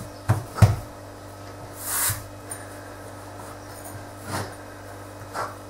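Hands pressing and shaping scone dough on a floured worktop, with two soft knocks in the first second and then a few short rubbing, scraping sounds, the loudest about two seconds in.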